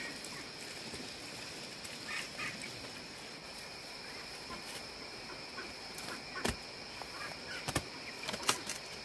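Farmyard chickens calling faintly over a steady high-pitched drone, with a few sharp knocks in the second half as a heavy woven sack is handled on a woven basket.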